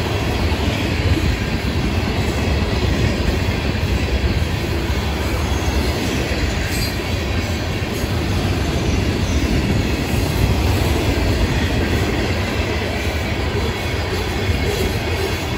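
Freight cars of a Florida East Coast Railway rock train rolling past: a steady, loud rumble and rattle of steel wheels on the rails.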